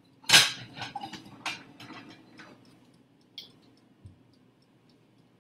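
Kitchenware clattering as a plate and pan are got out: a loud knock about a third of a second in, then a run of sharper clicks and knocks over the next two seconds, and a last small click and thud. Underneath, the dial timer of the running air-fryer toaster oven ticks steadily, several ticks a second, over a low steady hum.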